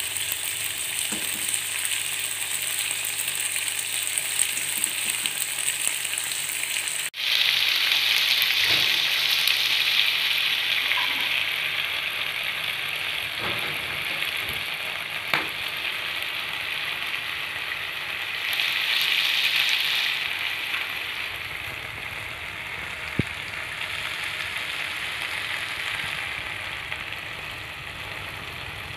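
Chicken pieces coated in thick chilli spice paste sizzling as they grill in a hot non-stick pan, a steady hiss. It jumps louder suddenly about seven seconds in, swells once more briefly about two-thirds of the way through, then eases off.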